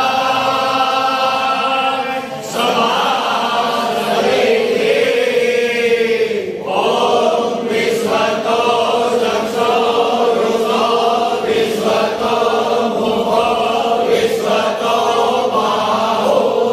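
A group of men chanting a Hindu devotional mantra together in unison, led by one strong voice. The chant runs in long held phrases with short breaks at about two and a half and six and a half seconds.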